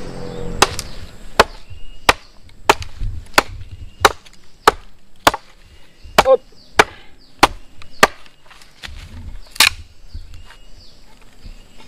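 Machete chopping into wooden sticks: a steady run of sharp blows, about three every two seconds, then a short pause and one last, louder blow near the end.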